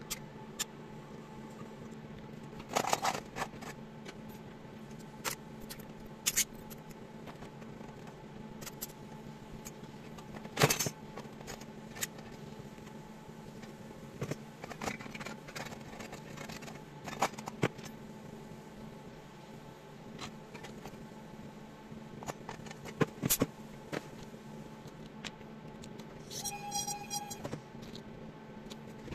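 Small metal model parts and hand tools clicking and tapping on a workbench, in scattered single knocks with a louder one about ten seconds in, over a steady low hum. A brief high squeak comes near the end.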